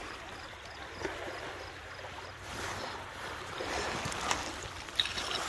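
Footsteps on sand and beach pebbles, with a few sharp clicks of stones knocking together, over a steady outdoor hiss.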